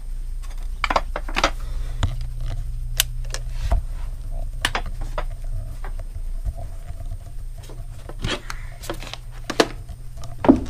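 Low rumble of a handheld camera being carried, with scattered knocks and clicks from footsteps and handling, about seven in all. The sharpest knock comes near the end.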